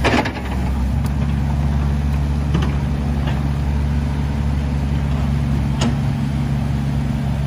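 An engine running steadily at idle, with a sharp click right at the start and a few faint ticks later on.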